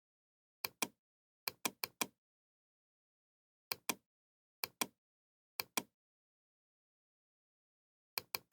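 Computer mouse button clicking in sharp pairs, each a press and a release a fraction of a second apart, about seven pairs at uneven intervals with dead silence between them.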